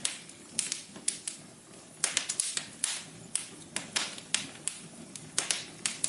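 Wood fire in a fireplace crackling: irregular sharp pops and snaps, sometimes several in quick succession, over a soft low rumble of burning.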